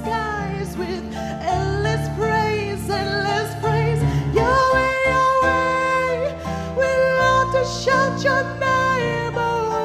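Live worship music: a woman singing a gospel song into a microphone, backed by guitar and keyboard. She holds one long note about halfway through.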